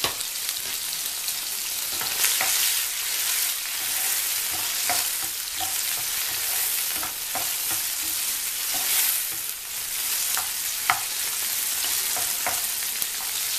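Chopped tomatoes sizzling in hot mustard oil in a nonstick frying pan, stirred with a black spatula that scrapes and clicks against the pan now and then, one sharper click near the end.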